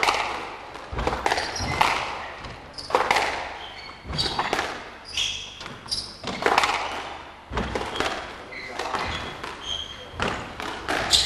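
Squash rally: the rubber ball is struck by rackets and smacks off the court walls, making sharp knocks about once a second, each echoing in the hall. Short high squeaks come from shoes on the wooden court floor between the shots.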